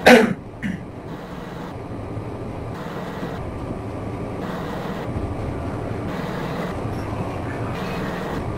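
Steady low background hum of a room, with faint rustling as clothes are folded and packed into a backpack. A brief voice sound at the very start.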